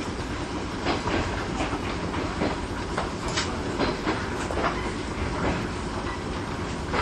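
415-series electric train running on the rails, heard from inside the car: a steady rumble with irregular clicks as the wheels pass over rail joints.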